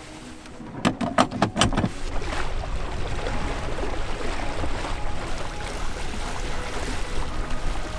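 Sailboat under sail: a quick run of about five sharp metallic clicks about a second in as the winch handle is worked, then a steady rush of wind and water along the hull.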